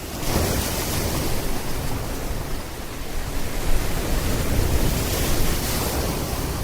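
Steady rushing noise with a fluctuating low rumble underneath.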